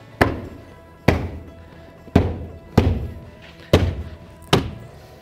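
A series of six firm thumps, roughly one a second, as a hand strikes the plastic door trim panel of a Chevy Silverado to snap its clips and locating pins into the door, over soft background music.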